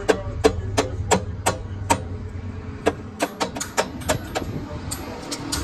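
Hammer blows on metal, about three a second for the first two seconds, then a quicker run of strikes and a few more near the end, over a steady low machine hum.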